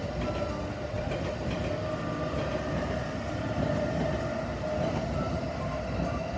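Yokosuka Line electric train running past, a steady rumble of wheels on rails with a steady hum.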